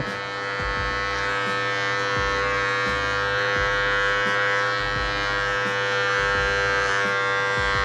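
Cordless electric hair clipper running with a steady buzz as it cuts hair over a comb (clipper-over-comb).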